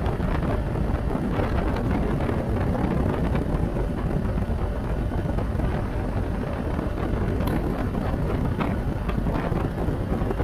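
Wind rushing over the microphone of a BMW R1250 GS Adventure motorcycle on the move, with road and engine noise: a steady low rumble with no breaks.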